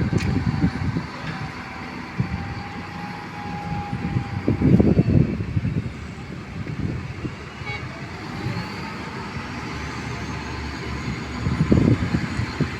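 Heavy construction machinery running: a diesel engine rumbles steadily and surges louder twice. A steady high whine sounds in the first few seconds and stops as the first surge starts.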